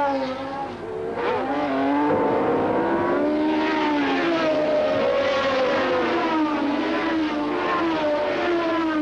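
Several 1970s Formula One race car engines running at high revs, overlapping, their pitch sliding down and up as the cars pass through corners. There is a brief dip in loudness just under a second in.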